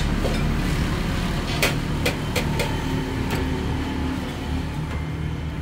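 Metal spoons clinking against the glasses they stand in, several sharp clinks over about two seconds, over a steady low hum of passing traffic.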